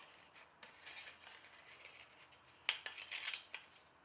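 Hands shuffling through a stack of small card tags and paper envelopes: papery rustling and scraping in short bursts, loudest in a cluster a little under three seconds in.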